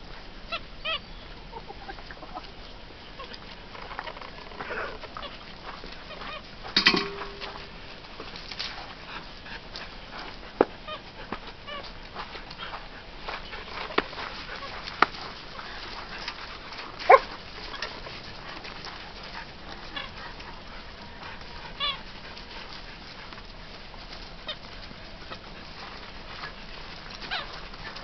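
Nine-week-old standard poodle puppies at play: scattered short yips every few seconds, with a few sharp knocks and clicks among them.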